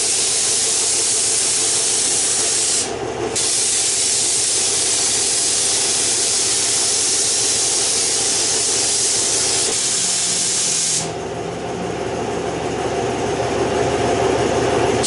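Gravity-feed air spray gun hissing steadily as it sprays base coat paint, with a brief break about three seconds in. From about eleven seconds the hiss turns duller and lower.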